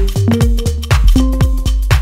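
Background electronic dance music with a steady beat of about four strokes a second and held synth chords.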